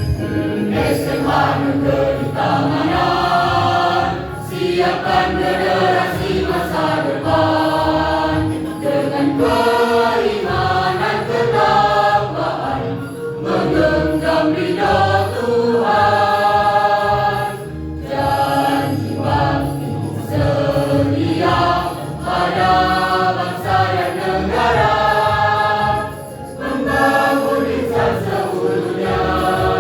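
A school choir singing a school march (mars) song: many voices together in steady, continuous phrases.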